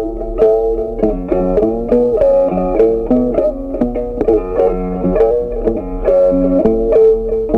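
Background instrumental music: a melody of quick plucked-string notes at a steady pace.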